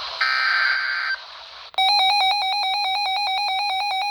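A NOAA Weather Radio SAME alert header plays: a raspy digital data burst lasting about a second. After a short pause, a RadioShack 12-254 weather radio's alert alarm starts near the middle and beeps rapidly and steadily, the sign that the radio has decoded a warning.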